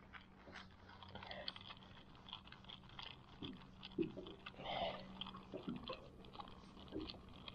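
Baitcasting fishing reel being handled and cranked, giving faint, irregular clicks and ticks with a few louder rubs, over a low steady hum.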